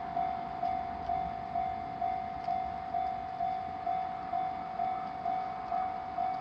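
Japanese level-crossing warning bell ringing its repeated electronic 'kan-kan' strikes, about two a second, which signal that a train is approaching and the crossing is closed.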